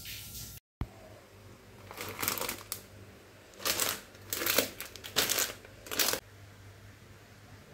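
Plastic food packets rustling and crinkling as a hand handles them, in about five short bursts.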